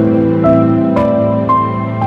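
Soft, slow background music in a new-age style: a melody of single notes, a new one about every half second, over sustained chords.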